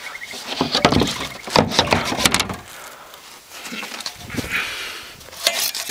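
Knocks, clicks and rattles of things being handled in a car's rear cargo area, busiest in the first half, then quieter handling noise.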